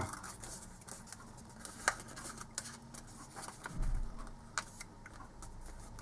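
Faint rustling and crinkling of a sheet of thin origami paper being folded in half and creased by hand, with a few short crisp clicks scattered through and a soft low thump a little before four seconds in.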